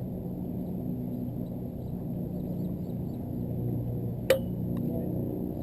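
Lacrosse-field background with a steady low murmur, and one sharp crack about four seconds in, like a ball or stick striking something hard.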